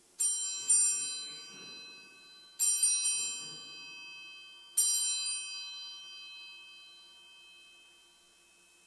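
Altar (Sanctus) bells rung three times, about two seconds apart, marking the elevation of the consecrated host. Each ring is a quick shake of a few bright bell strikes that rings on and slowly fades.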